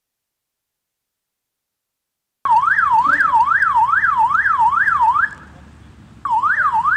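Siren of a GSM flood alarm unit going off after being triggered by SMS: a loud, fast up-and-down wail of about two and a half sweeps a second, starting abruptly after silence, dropping out for about a second and then starting again.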